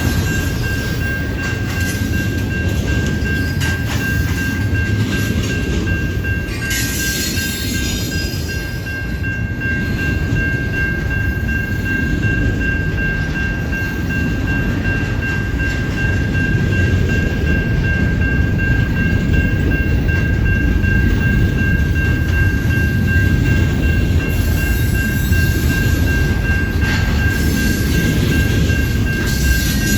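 CN intermodal freight train rolling by: a steady low rumble of wheels on rail under a steady high-pitched squeal, with a rush of hiss about seven seconds in and again near the end.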